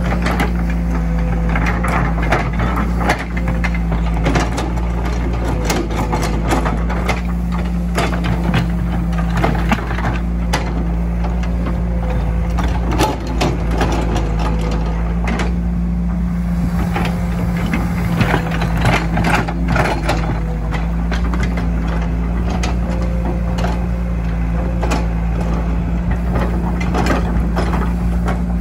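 Caterpillar hydraulic excavator's diesel engine running steadily under load, with frequent irregular knocks and clatter as the arm and bucket work.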